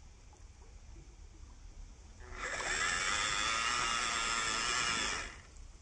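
Electric motor and gearbox of a 1/12-scale MN99S RC crawler whining under throttle for about three seconds, rising in pitch as it starts about two seconds in and cutting off suddenly near the end, as the truck pushes through shallow water.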